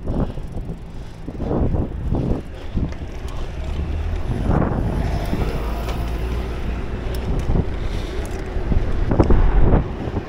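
Wind buffeting the microphone of a camera on a moving bicycle: a low, gusty noise that swells and drops irregularly, loudest near the end.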